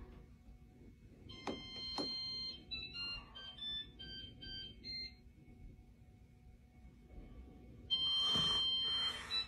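A faint electronic tune of short high beeping notes stepping up and down in pitch, after two sharp clicks. It stops about halfway through and comes back briefly near the end.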